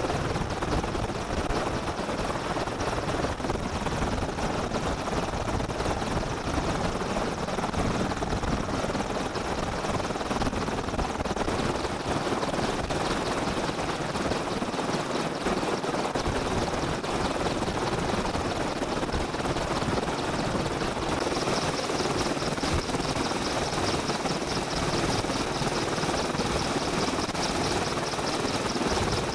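AH-64 Apache helicopter's twin turboshaft engines and rotor running steadily while it sits on the ground, a hot rearming with the aircraft powered up; a thin high whine grows stronger partway through.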